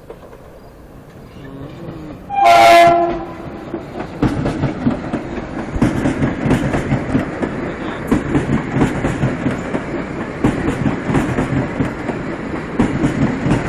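Metro-North M7A electric multiple unit sounds one short horn blast about two and a half seconds in, then passes through the station at speed. The wheels click rapidly over the rail joints under a steady rolling rumble.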